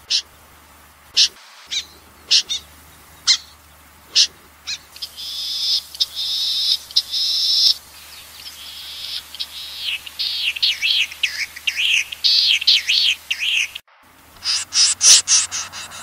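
Recorded snipe calls played as a lure: sharp single high calls about once a second, then a run of high twittering notes that grows busier. Near the end it cuts off abruptly and restarts with a string of loud calls, with a low steady hum under the whole recording.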